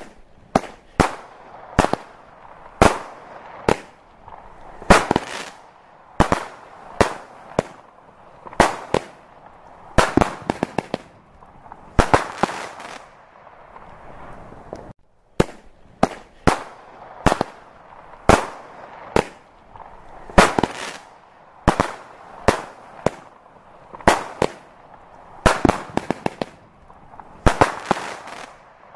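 Aerial fireworks display: a string of sharp bangs, roughly one or two a second, some coming in quick crackling clusters. It breaks off for a moment about halfway.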